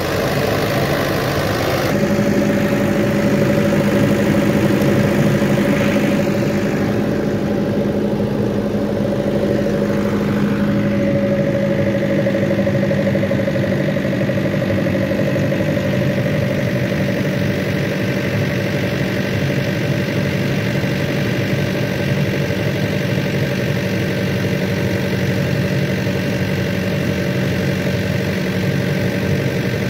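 Ashok Leyland diesel engine of a 40 kVA silent generator running steadily under a water-tank load test, an even hum that settles into a constant note about two seconds in.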